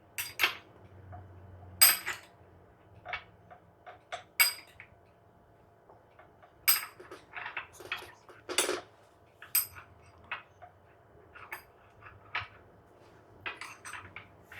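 Cutlery clinking and tapping against a plate: irregular short clicks, some with a brief metallic ring, a few each second.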